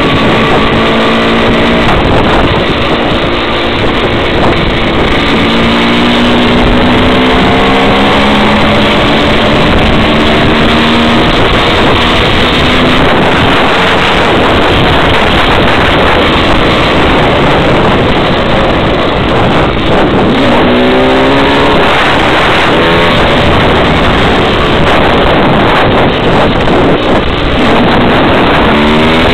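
KTM 125 EXC two-stroke single-cylinder engine running under load as the bike is ridden. Its pitch climbs slowly over the first ten seconds, then rises sharply twice more, about two-thirds of the way through and again near the end, as it accelerates.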